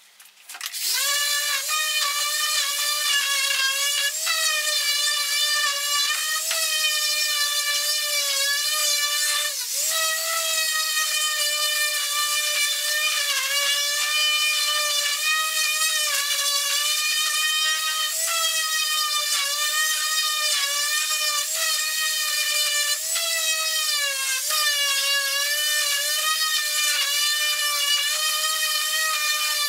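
Electric orbital sander starting up and running on pallet wood, a steady motor whine whose pitch dips briefly now and then as the sander is pressed onto the boards.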